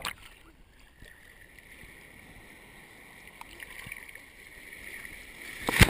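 Sea water sloshing and lapping around a waterproof-cased action camera held at the surface, muffled and soft. Near the end a loud rush of splashing water breaks over the camera.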